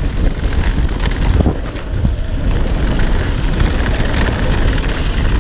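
Yeti SB5 mountain bike ridden fast down a dirt trail: a steady rumble of tyres and wind on the microphone, with a few sharp knocks from the bike over the rough ground.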